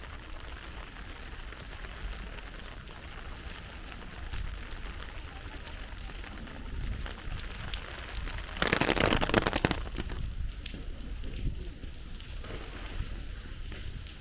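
Heavy rain falling and pattering steadily, with a much louder rush of noise lasting about a second a little past the middle.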